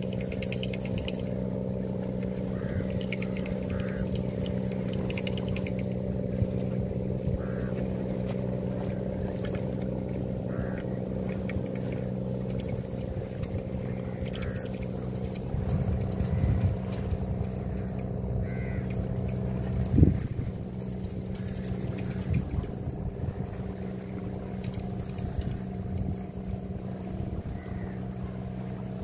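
Steady outdoor drone: a low machine-like hum with a thin insect-like buzz above it, with scattered short bird calls in the first half and one sharp knock about two-thirds of the way through.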